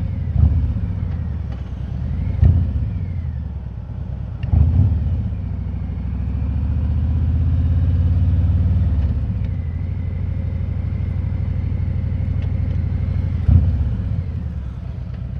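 Harley-Davidson Road King's V-twin engine running under way, heard through a helmet-mounted mic with wind noise. The engine swells louder about six seconds in and eases off after nine, with a few short sharp knocks along the way.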